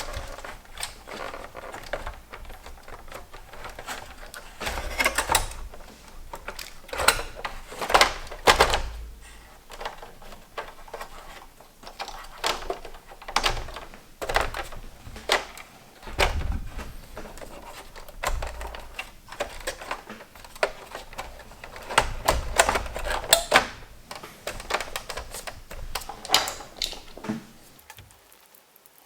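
Irregular clicks, taps and knocks of small plastic and metal parts of a PS3 Slim console being handled by hand, with a few heavier thumps.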